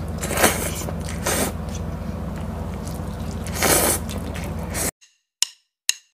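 People slurping Hong Kong-style fried egg noodles, three or so wet slurps over a steady low hum. The sound cuts off about five seconds in and gives way to a few short, sharp effects of an animated logo intro.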